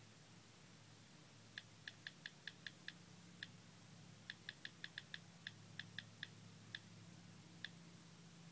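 Faint key-press clicks from typing on the LG Revolution's on-screen keyboard: a quick run of about seven clicks, a short pause, then a longer run of a dozen more, over a low steady hum.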